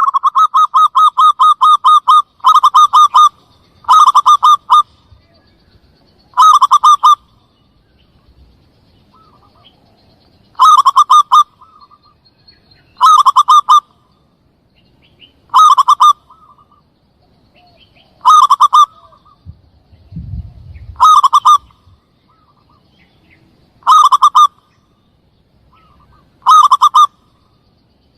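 Zebra dove (perkutut) lure call: a run of quick cooing notes lasting about two seconds, then short clusters of rapid notes repeated about every two and a half seconds, loud and close.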